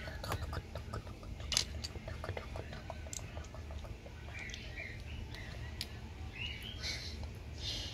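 Small hard plastic Lego pieces clicking and clattering in a rapid scatter of clicks, giving way in the second half to short high squeaks and a few bursts of rustling. A steady low hum runs underneath.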